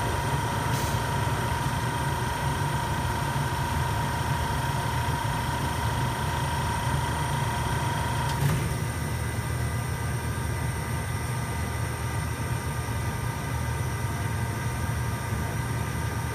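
Pizza oven running: a steady low hum with a high whine that cuts off with a click a little past halfway.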